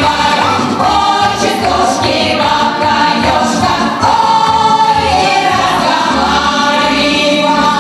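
A group of women singing a lively stage-musical song together into microphones, over instrumental accompaniment with a steady beat.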